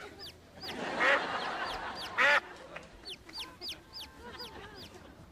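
A domestic duck quacks loudly twice, about a second in and again a little past two seconds. Throughout, a chick peeps steadily, about three short, high, falling peeps a second.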